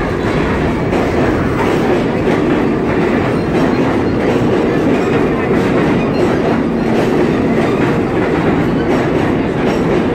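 New York City subway train running past the platform at speed: a loud, steady rumble of wheels on rail, with clacks as the wheels cross rail joints.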